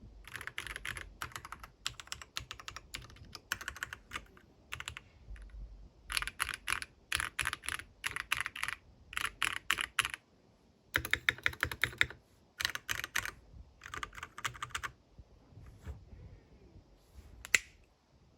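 Typing on a Keychron C3 Pro mechanical keyboard: runs of rapid keystrokes separated by short pauses, thinning out near the end with a single sharper, louder click.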